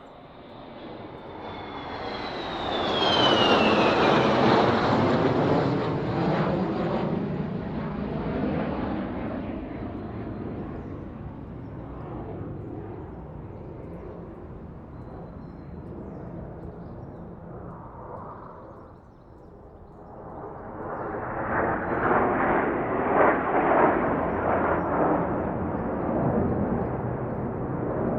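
Fighter jet flying past: it builds up with a high engine whine that slides down in pitch as it passes, then a loud roar that slowly fades. About twenty seconds in a second jet pass builds into a rough, crackling roar.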